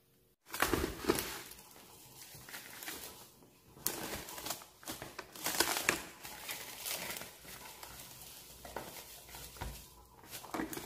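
Plastic cling wrap crinkling and rustling as it is stretched over a plastic bowl and pressed down around the rim, in irregular bursts that start suddenly about half a second in.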